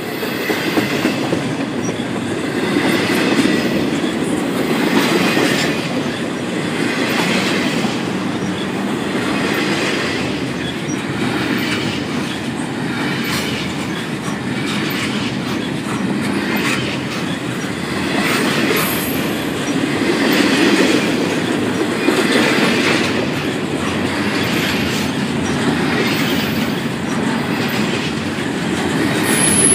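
CSX double-stack intermodal freight cars rolling past at speed: a steady rumble of steel wheels on rail, with clacks repeating every second or two as the wheel trucks cross the rail joints.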